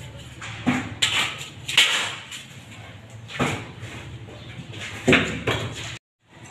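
Tiling tools scraping and knocking on cement mortar on a concrete stair step, short irregular strokes about a second apart; the sound cuts off suddenly near the end.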